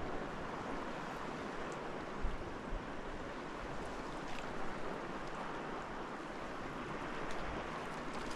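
River water rushing steadily, with a few faint clicks.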